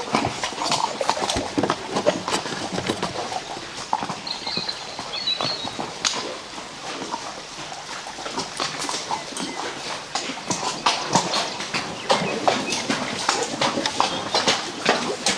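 Horses' hooves clopping along a trail: an irregular, continuous run of knocks.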